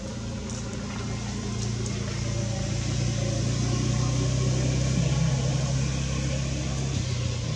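A motor vehicle's engine running, a steady low hum that grows louder over the first few seconds and then holds.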